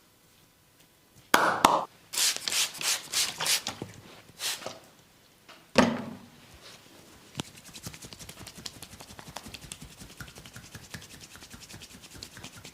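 Hands working a client's oiled skin and hair in a massage. A sharp slap-like hit comes about a second in, then a quick run of rubbing strokes, a heavier slap near the middle, and after that a fast, fine crackling of many small ticks.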